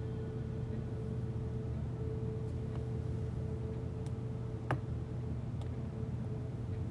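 Steady low hum with a faint steady tone above it, and one short click about two-thirds of the way in.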